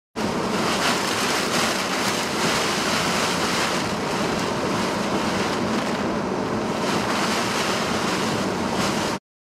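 Heavy rain and violent wind at the edge of a tornado beating against a vehicle, heard from inside: a loud, steady rush of noise that starts suddenly and cuts off abruptly near the end.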